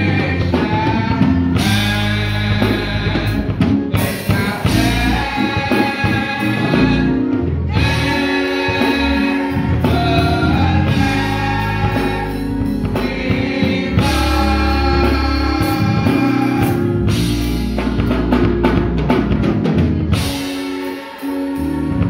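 Gospel music: voices singing over a drum kit, continuous and loud.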